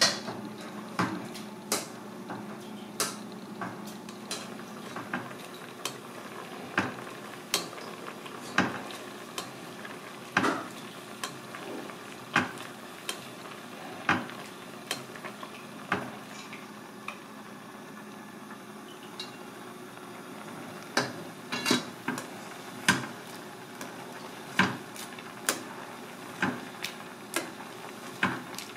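Metal ladle clinking against the rim and side of an aluminium pot again and again as a fish head simmering in sauce is basted. The clinks come every second or two, with a quick run of them about two-thirds of the way through, over a steady simmering hiss.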